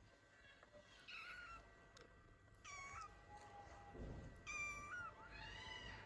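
Newborn kittens mewing for their mother: about four thin, high-pitched cries, each around half a second long, one rising and falling in pitch near the end. A soft low thump comes a little past the middle.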